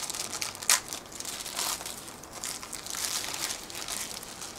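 Clear plastic wrapping crinkling and rustling as it is pulled off a small plastic device and handled, with a sharp click about two-thirds of a second in.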